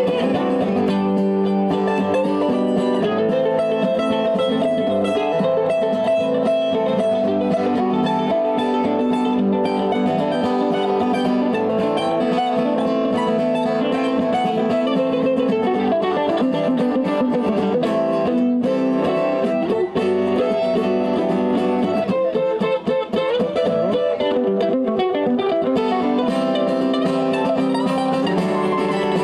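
A mandolin and an acoustic guitar playing a bluegrass instrumental break together, with no singing.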